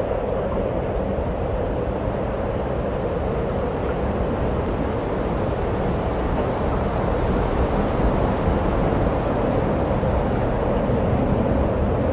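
Steady outdoor rushing noise with a low rumble, unbroken and even throughout, with no distinct knocks from the blocks.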